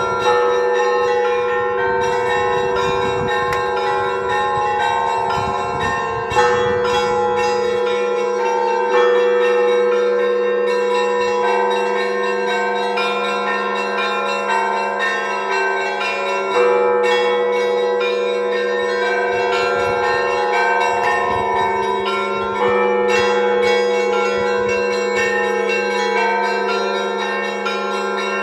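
Orthodox monastery bells ringing. Heavier bell strokes come every few seconds and ring on, while smaller bells strike rapidly over them.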